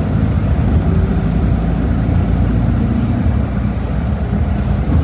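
Volkswagen Volksbus 17.230 Euro 6 bus engine running steadily, a continuous low drone.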